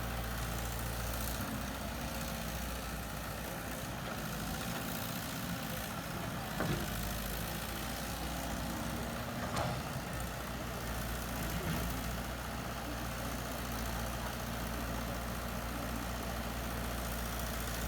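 Heavy-equipment diesel engine running steadily at a low, even speed, with a couple of brief knocks about seven and ten seconds in.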